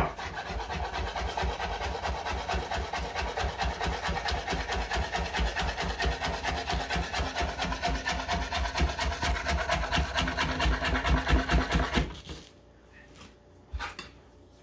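A knife chopping chives on a cutting board in a fast, even run of strokes, several a second, stopping about twelve seconds in.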